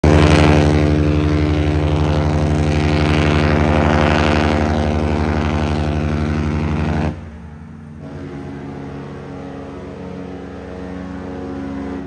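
Cruise ship horn sounding one long, deep, steady blast that cuts off abruptly about seven seconds in. About a second later a second, quieter ship's horn answers with its own steady blast.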